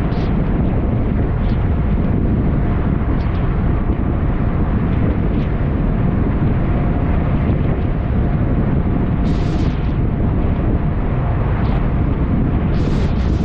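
Heavy wind buffeting the microphone over the steady run of a Buster Magnum aluminium boat's outboard motor, under way in rough waves. Two short hissing splashes of spray come about nine seconds in and near the end.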